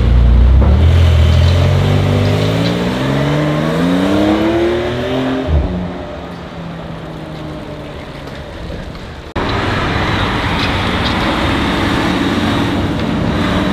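A sports car's engine revving up as the car accelerates, its pitch climbing steadily for about five seconds. A short sharp crack follows, then a steadier, quieter engine note. After an abrupt cut, another loud engine runs at a steady pitch.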